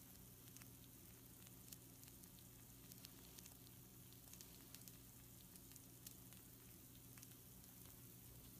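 Faint sizzling of pizza rolls on a hot baking tray: a soft steady hiss with scattered small crackles and pops, over a low steady hum.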